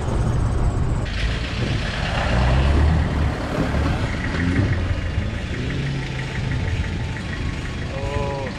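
Four-wheel-drive vehicle's engine running as it drives over a rough, muddy track, a low rumble that grows loudest about two to three seconds in.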